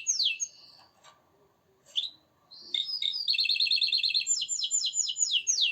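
Domestic canary singing: a series of quick, repeated, falling whistled notes, a short pause, then a rapid trill that passes into more falling notes.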